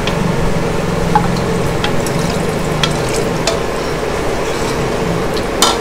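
Marinated chicken pieces sizzling in a hot frying pan as water is poured in from a bowl and stirred with a wooden spoon. Light knocks of the spoon against the bowl and pan come through it, with a sharper knock near the end.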